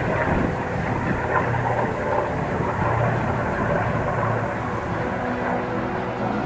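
Vintage propeller aircraft's piston engine running, a steady drone.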